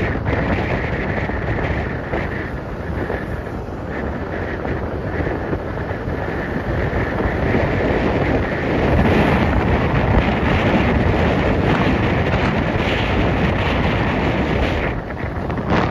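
Wind buffeting the microphone on a moving vehicle, a steady rush of wind with road noise underneath.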